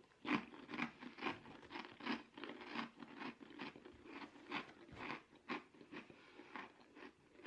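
A person chewing crunchy food with the mouth closed, about two crunches a second.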